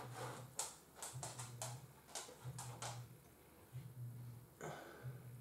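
Faint clicks and rustles of a large trout being handled and laid out for measuring. They come in a quick cluster over the first three seconds and once more near the end, over a low hum that comes and goes about every second and a half.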